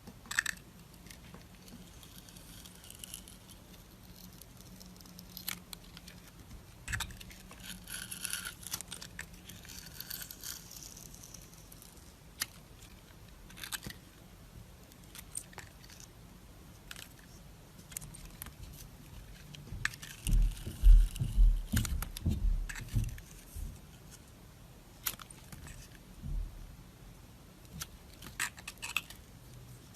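Close-miked ASMR handling sounds: scattered crisp clicks and crackles, with a cluster of low thumps about twenty seconds in.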